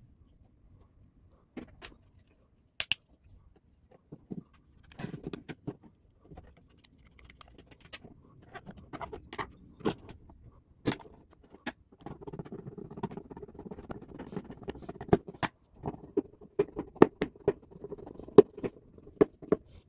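Handling noise from fitting a 13 A switched wall socket: scattered clicks and knocks of wires, pliers and the plastic faceplate. From about twelve seconds in comes a steady scratchy rasp with many sharp clicks: a hand screwdriver driving the faceplate's fixing screws into the back box.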